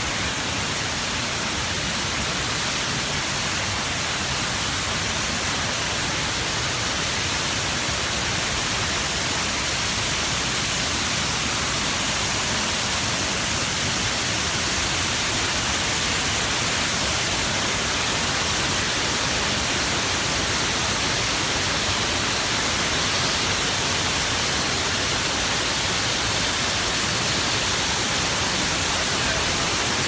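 Wachirathan Waterfall pouring down its rock face: a loud, steady rush of falling water with no let-up.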